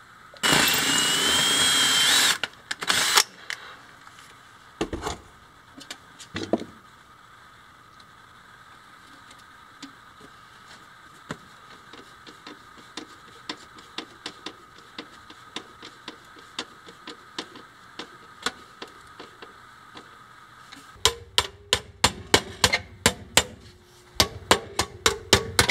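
Hammer tapping on a sheet-metal stove cap, a fast run of sharp metallic strikes with a short ring, bending the tabs down around the flue opening near the end. Earlier come scattered light taps and scrapes on the metal, and near the start a brief loud burst of noise with a rising whine.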